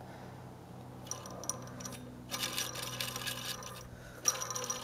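Metallic rattling and jingling from the McCulloch 650 Pro chainsaw's stopped clutch assembly (shoes, springs and rim sprocket) as it is handled by hand, in three bursts, the last two louder.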